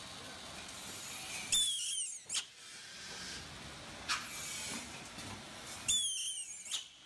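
DPB-400B blister thermoforming and packaging machine running, a steady mechanical hiss and hum marked twice, about four and a half seconds apart, by a sudden short whistle that falls in pitch, with a separate sharp click after the first one and again near the middle.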